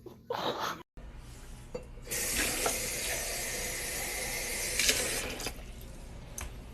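A steady rush of water running, like a tap, for about three and a half seconds, after a short burst of noise near the start.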